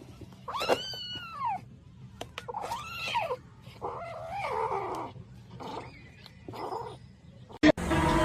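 Cat yowling: three long drawn-out calls, each rising then falling in pitch, followed by shorter calls. Near the end a sharp click, then much louder sustained noise sets in.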